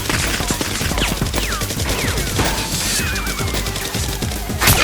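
Rapid, continuous gunfire, shot after shot in quick succession, with one louder shot just before the end.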